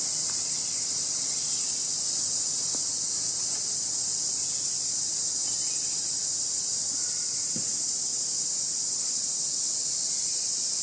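Steady, high-pitched drone of an insect chorus, with a couple of faint brief sounds about three and seven and a half seconds in.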